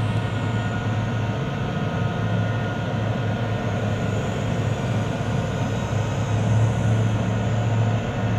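M1A2 Abrams tank's gas-turbine engine running steadily: a constant low drone with a faint high whine over it.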